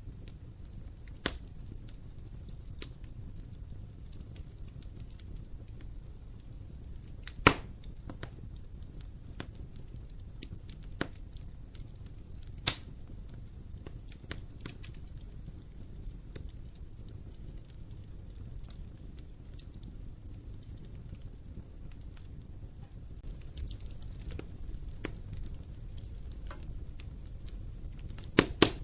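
Wood fire burning in a fireplace: a low steady rumble with scattered sharp crackles and pops. The loudest pop comes about seven seconds in, and a quick double pop comes near the end.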